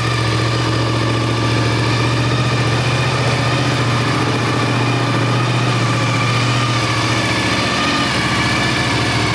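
Honda VTR1000 SP-2's 90-degree V-twin engine idling steadily.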